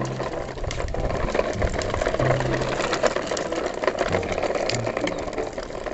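Plastic toy truck and trailer rolling over rough concrete, a steady rattling clatter of the wheels and body with many small clicks.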